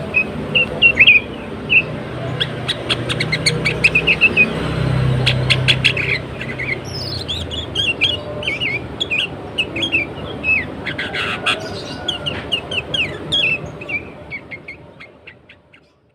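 Sooty-headed bulbul calling: quick bursts of short chirping and whistled notes mixed with sharp clicks, fading out near the end.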